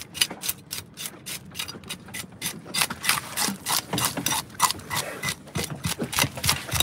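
Fish scaler scraping the scales off a small dog snapper on a wooden cutting board, in quick rasping strokes, about five a second.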